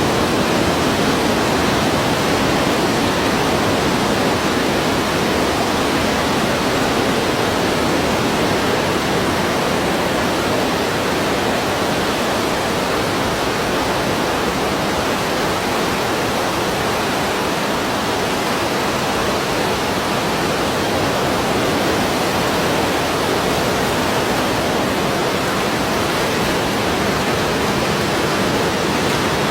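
Ocean surf as a continuous, even rush, without separate wave crashes standing out.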